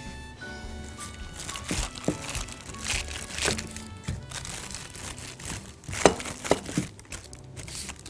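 Parchment paper crinkling and rustling as a wooden rolling pin rolls dough out between two sheets, with background music underneath.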